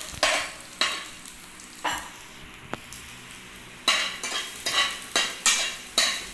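A metal spoon scraping and stirring chopped garlic around a nonstick frying pan in short strokes, with a soft sizzle of the garlic in a little hot oil. The strokes pause about two seconds in, then come quicker, about three a second.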